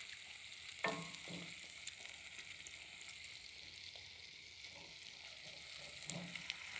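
Meat and potatoes sizzling steadily in a saj, a wide iron pan, over wood embers, with a wooden spoon stirring and scraping through them: two strokes about a second in and another near the end.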